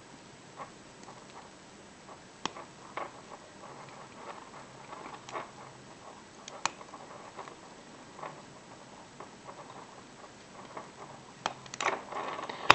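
Hook pick working the pins of a five-pin laminated padlock: small irregular clicks and light scraping, with a louder flurry of clicks near the end as the lock gives.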